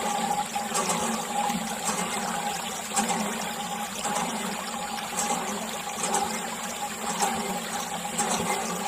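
Water pouring steadily from a thin plastic tube onto wet soil, a continuous splashing trickle, with a steady hum underneath.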